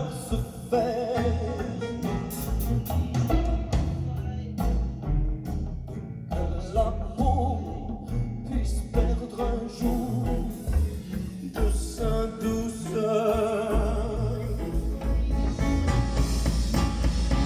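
Recorded French pop song playing without lyrics. A melody line wavers with vibrato over a deep bass line and percussion.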